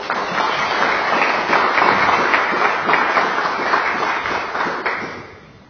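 Audience applauding, starting abruptly and dying away about five seconds in.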